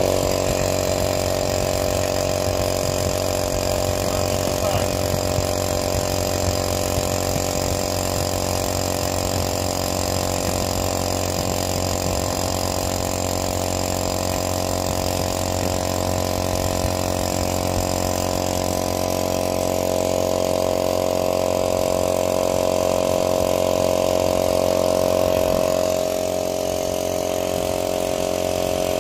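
Oil-lubricated piston air compressor running steadily with its newly replaced valve reed, pumping up the tank. The running hum grows a little louder for several seconds near the end, then eases off slightly.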